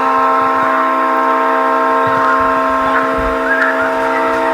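Leslie RS3L three-chime locomotive air horn blowing one long, steady, unbroken chord.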